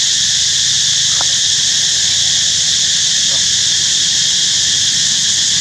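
Insect chorus, a loud steady high-pitched buzz.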